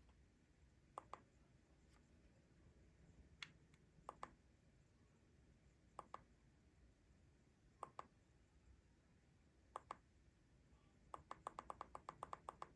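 Small push-button clicking: sharp clicks mostly in close pairs about two seconds apart, then a quick run of about a dozen clicks near the end.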